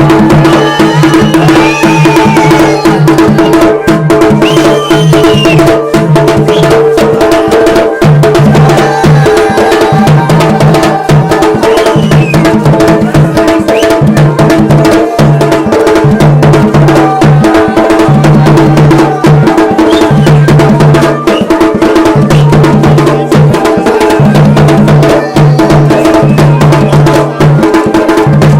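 Garhwali dhol and damau drums playing a dense, continuous rhythm of strokes, loud throughout, over a low held tone that breaks off and returns roughly every second.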